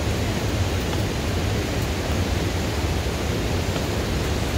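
Steady rush of a waterfall, an even roar of falling water with no change in loudness.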